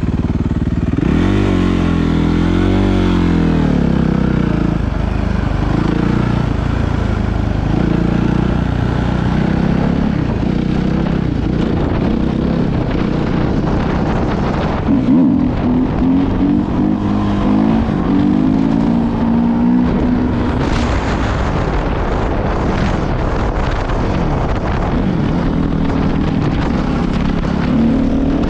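Suzuki 450 dirt bike's single-cylinder four-stroke engine under way, its pitch rising and falling again and again with the throttle, with a sharp rev-up about a second in.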